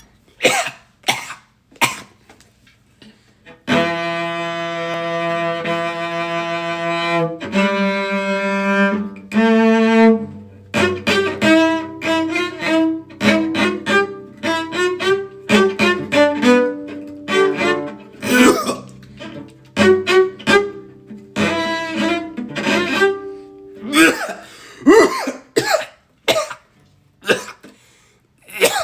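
Bowed cello: a few long held notes, then a quicker run of shorter notes. Between them come a person's coughs: a few at the start and a run of harsh coughs near the end, a coughing fit.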